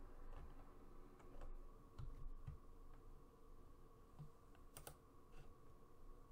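Faint, scattered keystrokes and clicks on a computer keyboard and mouse, the sharpest click nearly five seconds in, over a faint steady hum.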